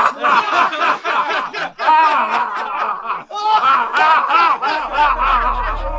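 A group of men and a woman laughing hard together, several voices overlapping.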